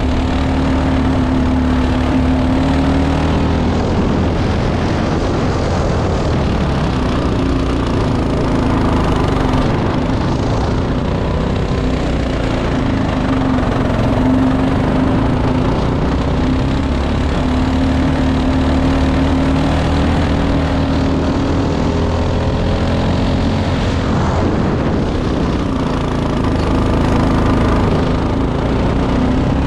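Single-cylinder four-stroke Honda GX-clone kart engine at racing speed, its note repeatedly climbing as it pulls along a straight and dropping off into a corner, heard from on board at close range.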